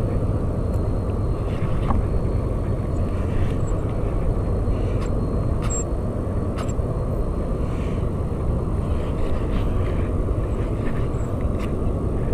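Steady low rumble of wind buffeting the camera microphone, with a few faint, scattered clicks.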